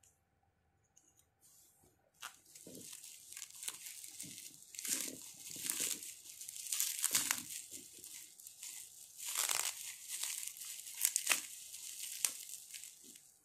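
Plastic bubble wrap crinkling and tearing as it is pulled open by hand, an irregular run of crackles starting about two seconds in.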